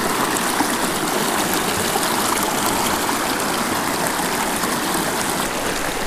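Shallow mountain creek rushing over rocks: a steady wash of running water.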